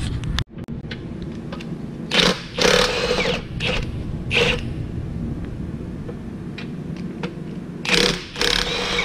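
Steady low mechanical hum, dropping out for a moment about half a second in, with a few short noisy bursts over it.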